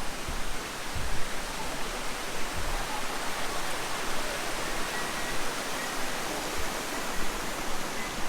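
Steady rush of falling water from a small waterfall into natural pools, with a few brief low knocks about a second in.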